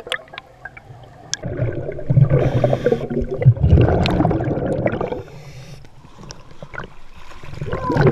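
Water gurgling and bubbling around an underwater camera: a scuba diver's exhaled bubbles, loud for a few seconds from about a second and a half in. Quieter water sloshing follows as the camera reaches the surface, growing again near the end.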